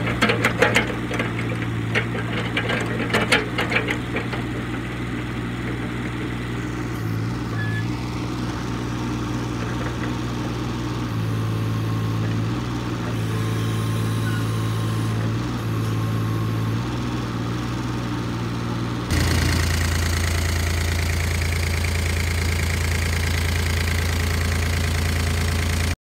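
The diesel engine of a CAT 301.8 mini excavator running steadily, its note stepping up and down as the hydraulics are worked. In the first few seconds, sharp scraping and knocking from the steel bucket working through snow. About 19 seconds in, the engine note drops lower and grows louder.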